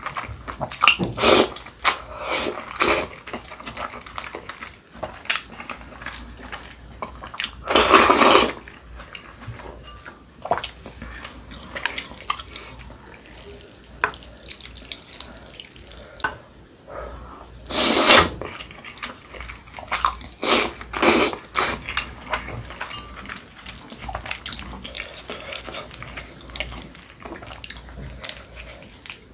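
A person slurping noodles from a bowl of noodle soup, with several slurps, the two longest and loudest about eight and eighteen seconds in, and wet chewing and smacking in between.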